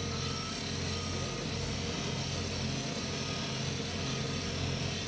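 Portable abrasive rail saw cutting through a steel rail, its disc grinding into the rail at a steady pitch throughout.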